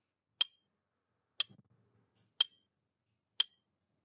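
Countdown timer tick sound effect: four sharp clock-like ticks, one a second.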